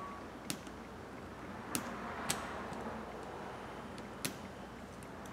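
Short, sharp clicks and taps, four in all, from small parts being handled inside an opened iPhone 11 Pro Max, over a steady room hiss.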